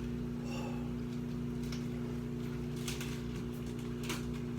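Steady low electrical hum, with faint short mouth noises about once a second from someone chewing food.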